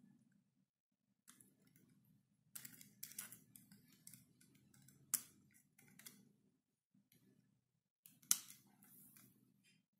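Side cutters snipping the thin wires off a model locomotive's DC circuit board: several short, sharp snips, the loudest about five and eight seconds in, with faint rustle of the wires and loco being handled between them.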